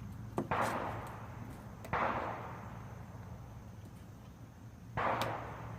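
Three distant gunshots from a firing range, about half a second, two seconds and five seconds in, each followed by a fading echo.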